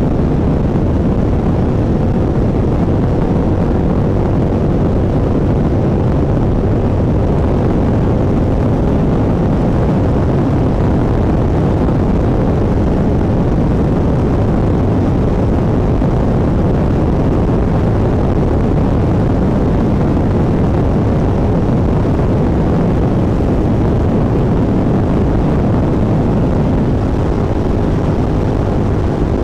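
Suzuki SV650's V-twin engine with a full aftermarket exhaust, heard from the passenger seat under way: loud, steady engine and exhaust sound, easing slightly near the end.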